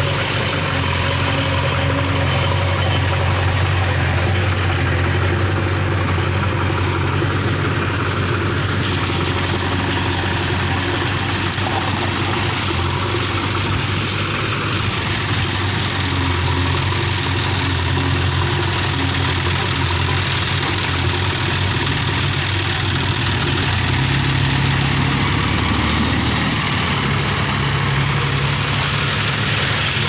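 Diesel engines of a JCB 3DX backhoe loader and a John Deere 5050D tractor running steadily at low speed. The engine note shifts a little about three quarters of the way through.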